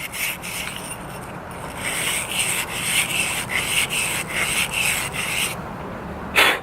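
Quick rhythmic rubbing strokes, about three a second, as a carburetor part is scrubbed to clear out old gasoline varnish, with one short louder rush of noise near the end.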